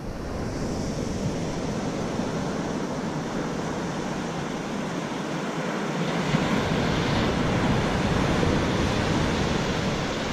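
Ocean surf washing up a sandy beach: a steady rush of breaking waves that swells a little louder about six seconds in.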